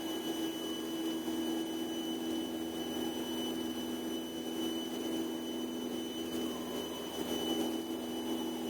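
Cessna 150's Continental O-200 four-cylinder engine and propeller running steadily at climb power just after takeoff: an even drone with a thin, steady high whine above it.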